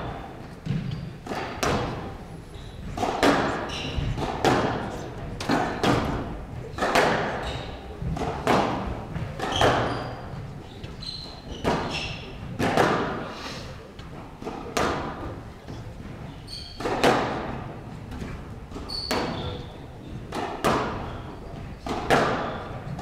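A squash rally: the ball is struck hard with racquets and smacks off the front wall and glass walls about once a second, each hit echoing through the hall.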